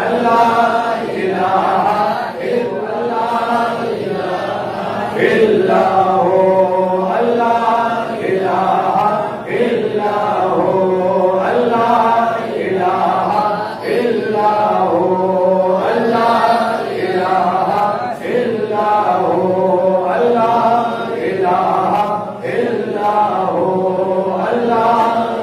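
A man chanting a devotional milad hymn in long, melodic phrases that rise and fall in pitch, with short breaks every few seconds.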